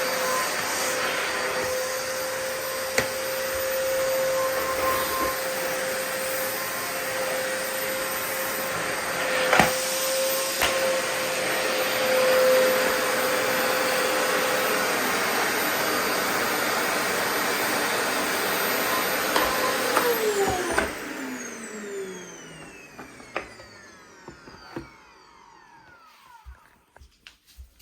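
Sencor SVC45BL bagged vacuum cleaner running steadily. It is switched off about twenty seconds in, and its motor winds down with a falling pitch. A few light clicks and knocks follow near the end.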